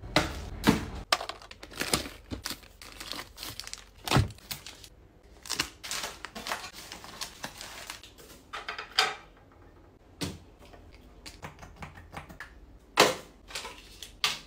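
Plastic wrappers and small packets crinkling and clicking as they are handled and dropped into plastic and fabric storage baskets. Irregular rustles with sharp taps, the loudest about a second in, around four seconds in and near the end.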